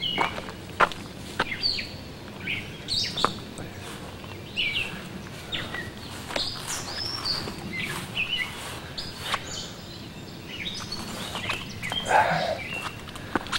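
Birds chirping outdoors in short, scattered calls, some rising and some falling, with sharp clicks and rustles in between and a brief louder rustle near the end.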